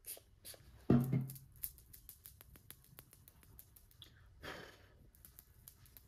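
Bath & Body Works body mist pump spray bottle sprayed with a short hiss about a second in, followed by light clicks of the bottle being handled and another brief hiss a few seconds later.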